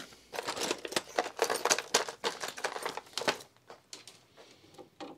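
Hand tools clattering as someone rummages through a tray of screwdrivers for a smaller one: a dense run of clicks and rattles for about three seconds, then a few faint clicks.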